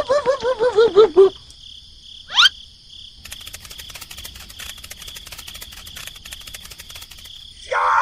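Cartoon sound effects: a quick run of wobbling, warbling tones in the first second, a short rising whistle about two and a half seconds in, over steady cricket chirping with fine rapid clicking that carries on alone for the rest.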